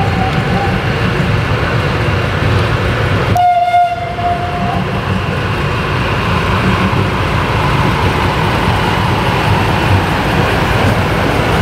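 Diesel locomotive approaching with its train, a steady low rumble, with one short horn blast of about a second and a half, some three and a half seconds in.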